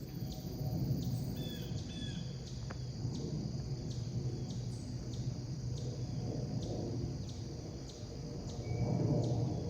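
Birds calling outdoors: a short high note repeats about every two-thirds of a second, with two lower two-part calls about two seconds in. Underneath runs a steady low rumble, the loudest sound, which swells near the end.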